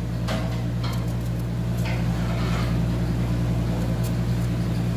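A steady low machine hum, with a few faint knocks in the first couple of seconds as onion pieces are cut with a knife and dropped into a steel pot of chopped tomatoes.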